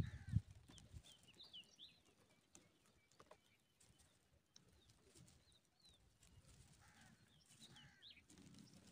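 Faint high cheeping of pipit nestlings in the nest, in a cluster of short chirps just after the start and another near the end. A brief low thump at the very start.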